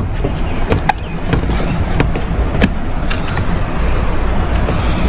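A handful of sharp clicks and knocks as a stuck part is worked at to pop it loose in the Jeep's engine bay, over a steady low rumble.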